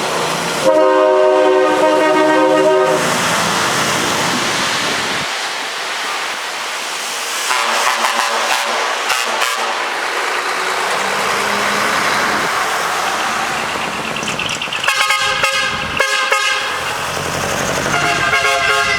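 Decorated trucks' air horns (rappa) sounding over the steady noise of the trucks' engines and exhausts as they drive off. A held multi-note chord comes about a second in, choppy stuttering blasts follow in the middle, and rapid pulsed blasts come near the end.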